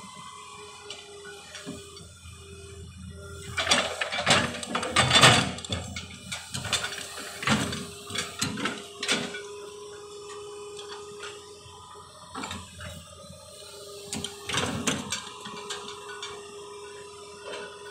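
Hydraulic excavator at work: a steady whine, with clanking and scraping from about four to nine seconds in and again briefly near fourteen seconds.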